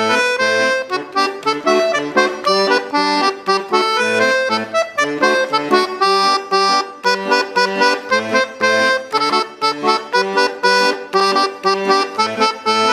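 An accordion playing an instrumental folk dance tune: a quick melody over regularly pulsing bass notes.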